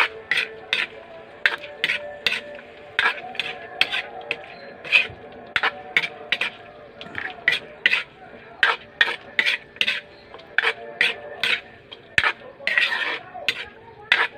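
A spatula scraping and knocking against a wok as pork pieces are stir-fried, in quick, uneven strokes about two or three a second.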